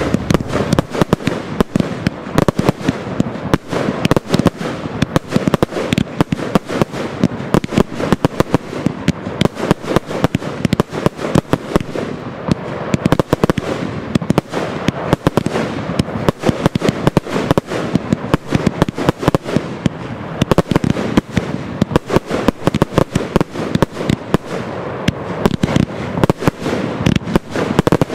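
Fireworks going off in a rapid, unbroken barrage of bangs and crackles, many reports a second with no pause.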